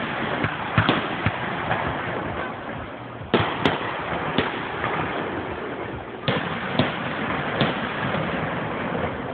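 Fireworks display: aerial shells bursting in sharp bangs, about eight at irregular intervals, over a continuous background din.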